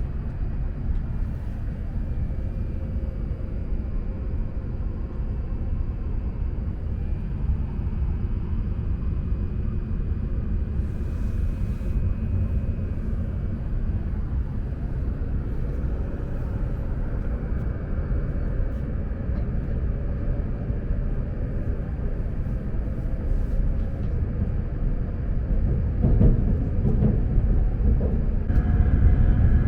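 Hokuriku Shinkansen train running noise: a steady low rumble that grows louder near the end.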